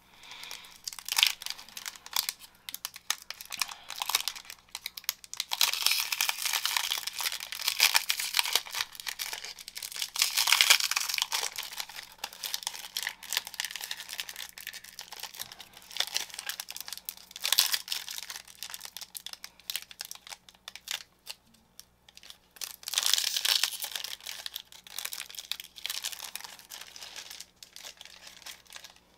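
Foil trading-card pack wrapper being torn open and crinkled by hand, in several spells of crackling separated by short pauses.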